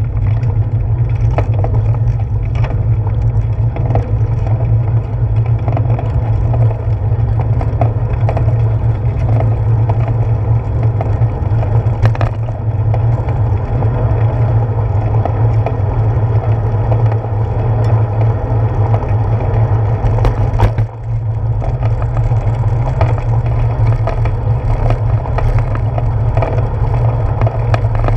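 Bicycle rolling along a paved street, heard through a handlebar-mounted GoPro: a steady, loud low rumble of road vibration with scattered clicks and rattles, dipping briefly near the end.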